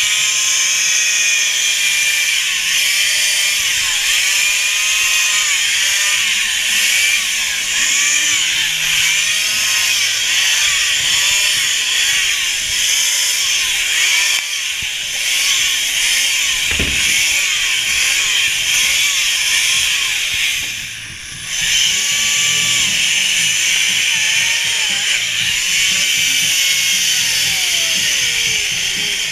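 Chainsaws carving blocks of ice, running continuously, their pitch rising and falling again and again as the cutters load and ease off, with a short lull about twenty seconds in.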